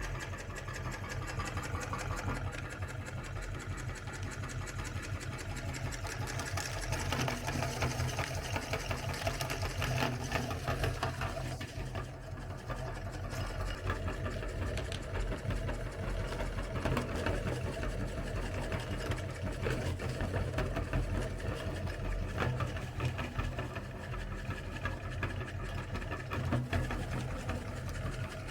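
Electric meat grinder running steadily, grinding chocolate candy: a motor hum under a dense, continuous rattle and crunch.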